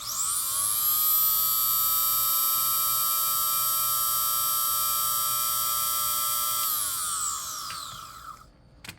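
Kawasaki ZX-12R's electric radiator cooling fan motor spinning up with a quickly rising whine, running steadily for about seven seconds, then winding down in falling pitch.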